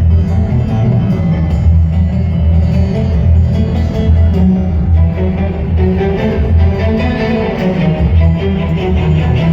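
Loud instrumental music with a heavy bass line.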